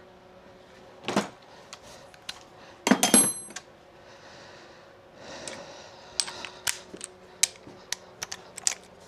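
Metal sockets and hand tools clinking and clattering as a 12 mm socket is picked out. There is a loud clatter with a brief metallic ring about three seconds in, then a run of sharp, irregular clicks near the end.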